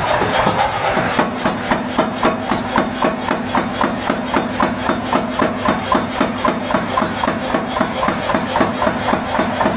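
Hammer blows on hot iron being drawn out at the anvil, in a rapid steady rhythm of about three to four strikes a second, over a steady low hum of running machinery.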